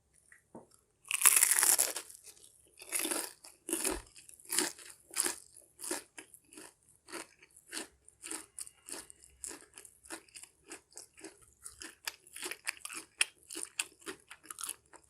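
A loud crunchy bite into fried fish about a second in, then steady close-up chewing with crisp crunches, roughly one and a half to two a second.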